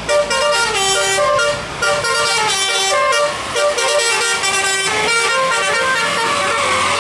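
Bus telolet horn, a multi-note musical air horn, playing a quick melody of short stepping notes, sometimes several notes at once, with brief breaks about two and three and a half seconds in.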